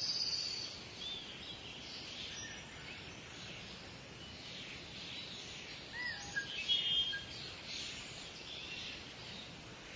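Small birds chirping and warbling in short high calls over a steady outdoor background hiss, with a louder burst of calls just over halfway through.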